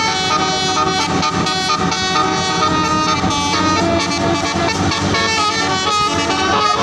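Bus telolet horn, a multi-tone horn, playing a tune of held notes that step from one pitch to the next, over the noise of the bus.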